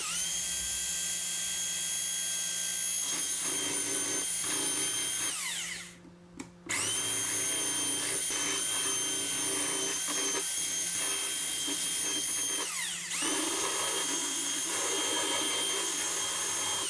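Ryobi 3-inch belt sander running with a steady high whine while sanding a wooden handle to rough shape. About five seconds in the whine slides down as the motor winds down, and it starts again a second later. Near thirteen seconds it briefly slows and speeds back up.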